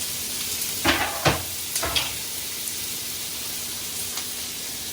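Chopped bacon sizzling in a cast iron skillet on medium-high heat, a steady frying hiss. Four sharp knocks of a utensil against the pan come between about one and two seconds in.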